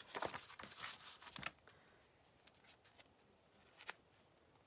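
Rustling and crinkling of a plastic adhesive stencil sheet and its paper backing being handled, a quick run of sharp crackles in the first second and a half. After that come a few faint, isolated ticks.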